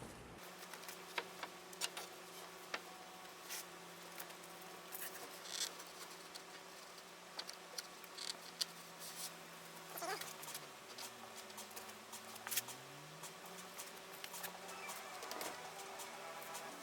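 Faint steady low hum with scattered light clicks and taps; about ten seconds in, the hum's pitch dips and then rises again.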